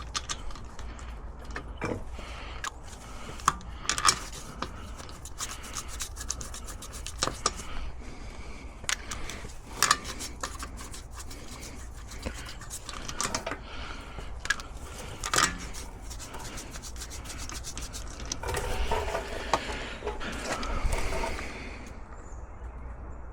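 Hand work on a car's rear brakes: scattered clicks and knocks of tools and metal parts being handled, with a stretch of rubbing and scraping near the end.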